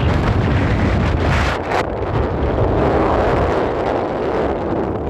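Strong wind buffeting the microphone: a loud, continuous rumble and rush.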